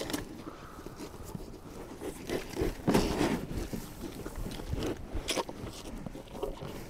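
Wagyu cattle biting into whole watermelons, the rinds crunching and cracking in irregular bites, the loudest about three seconds in and another a couple of seconds later.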